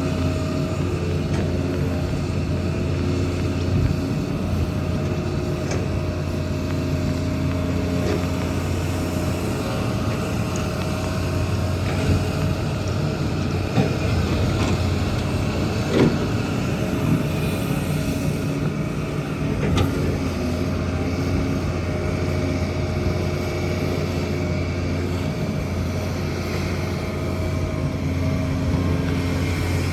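Kobelco excavator's diesel engine running steadily, with a few sharp knocks, the loudest about sixteen seconds in.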